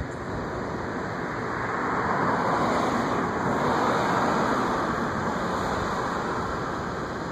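Road traffic noise: a steady rushing hiss that swells for a few seconds in the middle, as a car passes, then eases off.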